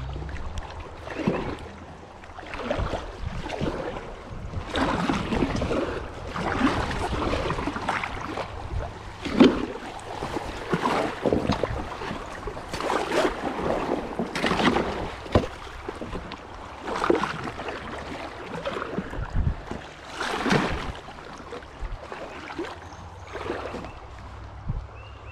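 Paddle strokes in river water, a splash and swish roughly every one to two seconds.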